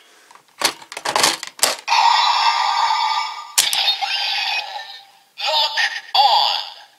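Sengoku Driver toy belt with the Donguri Lockseed: several sharp plastic clicks as the lock is snapped open and locked into the buckle, then the belt's electronic standby tune and another click. Near the end comes the belt's electronic voice announcement.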